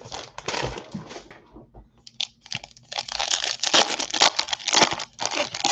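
Foil wrapper of a Bowman baseball card pack being torn open and crinkled by hand: a run of crackling rustles that get busier and louder in the second half.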